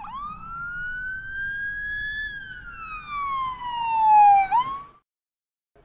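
Siren wail, one slow rise in pitch and a long fall, with a quick upward whoop at the start and again just before it cuts off near the end.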